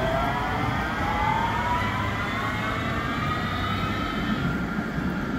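KVB Stadtbahn light-rail car pulling away from the platform, its traction motors giving a whine that rises steadily in pitch as it accelerates, over a low rumble of wheels on rail.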